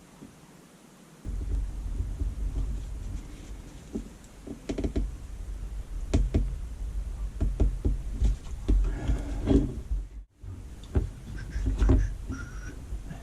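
Handling noise from fingers working a small plastic USB plug part into place, with scattered light clicks and knocks over a low rumble.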